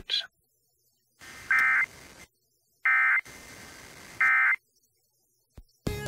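Emergency Alert System end-of-message tones: three short bursts of SAME digital data, each a buzzy two-tone warble about half a second long, about a second and a half apart, heard over FM radio with faint hiss between them. They signal the end of the alert message.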